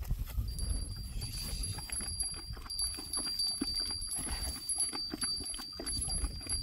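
Wind rumbling on the microphone with scattered light clicks and knocks, and a steady high-pitched whine that sets in about half a second in.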